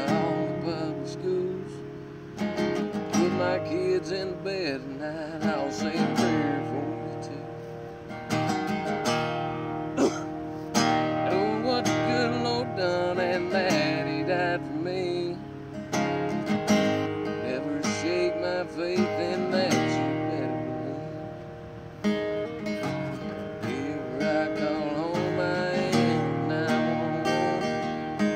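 Acoustic guitar played steadily, strummed chords mixed with picked notes.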